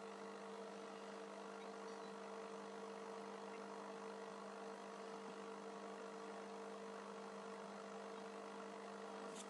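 Aquarium pump or filter running, a steady hum with an even hiss beneath it.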